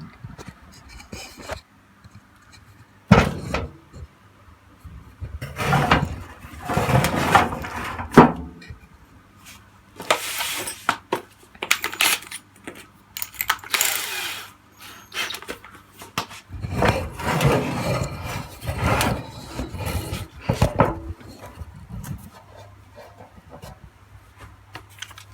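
Tools and metal parts being handled on a workbench: bursts of clattering, scraping and knocking with sharp clicks between them.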